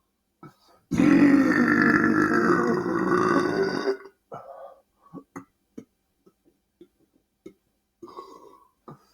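A man's loud, deliberate belch lasting about three seconds, starting about a second in. It is followed by faint scattered mouth clicks.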